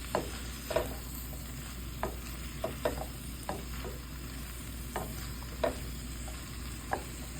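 Green beans and pork sizzling in a frying pan, with a utensil scraping and knocking against the pan at irregular intervals as they are stirred.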